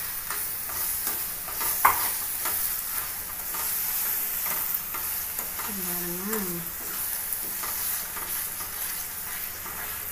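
Grated ash gourd sizzling in a non-stick frying pan while a spatula stirs freshly added sugar through it, with repeated short scrapes against the pan and one sharper knock about two seconds in.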